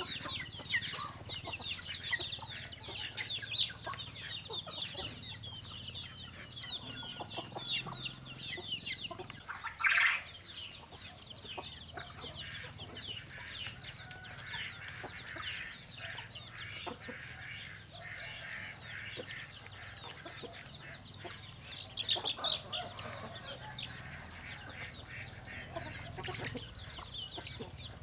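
A flock of chickens calling: a dense stream of short, high-pitched calls, with one louder, longer squawk about ten seconds in.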